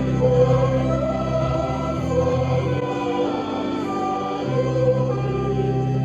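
A choir singing slow, held chords, the chord changing a few times.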